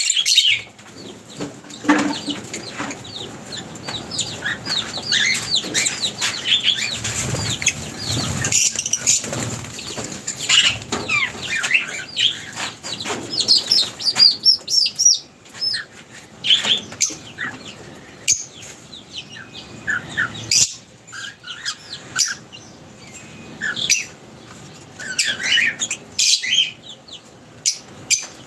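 A flock of birds at a feeding spot, chirping constantly in short rapid calls, with wings flapping now and then as birds take off and land.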